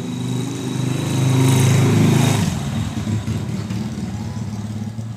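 A motor vehicle passing close by, its engine growing louder to a peak about two seconds in and then fading away.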